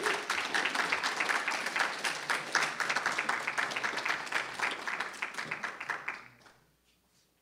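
Audience applauding, many hands clapping at once; the applause dies away about six seconds in.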